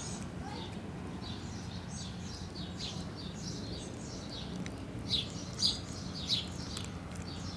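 Small birds chirping and calling repeatedly in the background, a few calls standing out louder about five to six seconds in, over a low steady hum.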